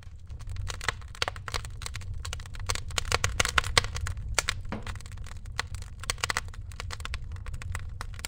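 Wood fire burning in a braai stand, crackling with many sharp, irregular pops over a steady low rumble.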